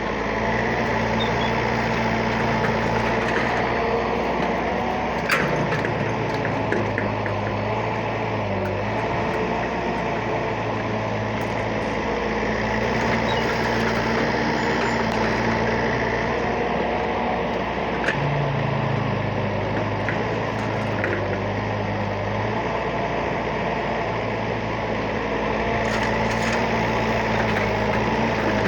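Excavator's diesel engine running steadily, its pitch stepping up briefly a few times as it works, with occasional faint knocks.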